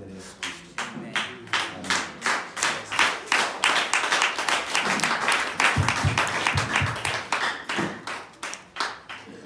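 Congregation clapping hands: first in an even beat of about three claps a second, then thickening into dense applause through the middle, thinning out near the end.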